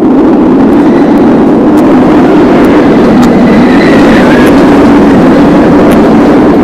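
Roller coaster train running on its track: a loud, steady rumble.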